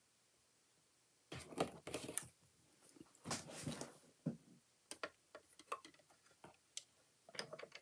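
Clear plastic cutting plate and die being handled and set down on a mini die-cutting machine's platform: a scatter of light clicks, taps and short scrapes, starting about a second in.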